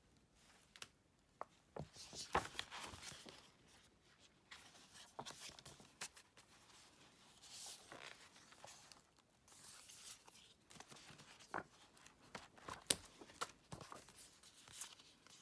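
Faint rustling of paper as the pages of a photobook are flipped and photocards and a poster are handled, with scattered small clicks and taps.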